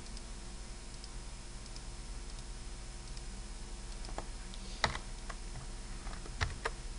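About five sharp computer keyboard and mouse clicks in the second half, the loudest about five seconds in, over a steady low electrical hum.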